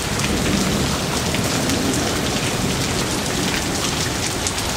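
Steady rush of water from rain and floodwater running through a flooded alleyway: an even hiss with scattered small drop-like ticks.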